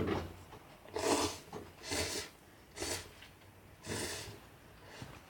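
Ramen noodles being slurped, four short slurps about a second apart.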